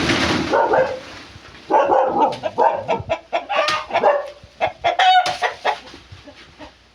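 Chickens clucking: a run of short calls that stops about five and a half seconds in.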